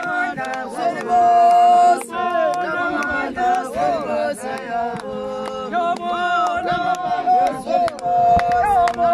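A group of voices singing a ceremonial chant together, holding long notes, with sharp percussive hits scattered through it.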